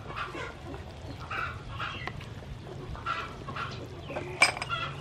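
Chickens clucking in a run of short calls, with one sharp knock about four and a half seconds in.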